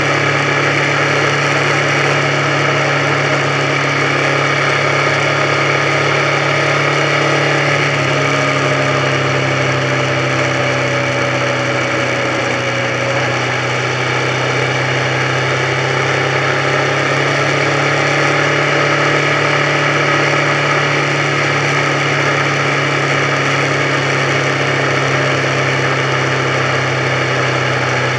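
Motorcycle engine running steadily at cruising speed, heard from on board the bike, its pitch dipping slightly about ten seconds in.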